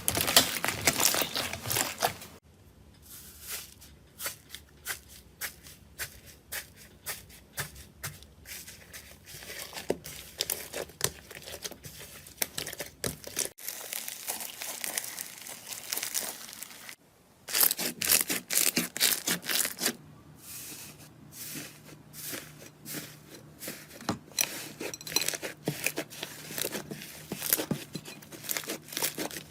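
Slime being pressed, stretched and squished by hand, giving dense crackling and popping clicks. The sound changes abruptly a few times, as one slime gives way to another.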